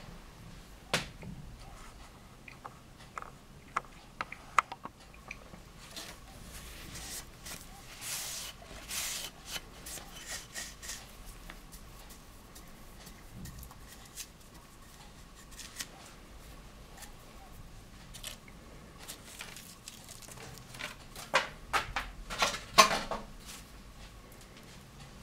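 Small homemade wood lathe: a faint steady motor whine under scattered clicks and bursts of scraping on the spinning wooden blank, with the loudest run of scrape strokes near the end.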